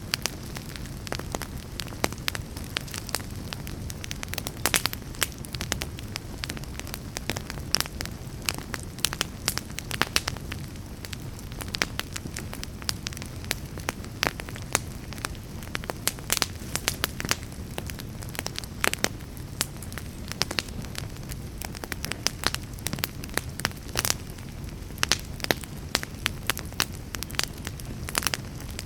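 Wood fire burning in a fireplace: a steady low rumble of flames with frequent, irregular sharp crackles and pops from the burning logs.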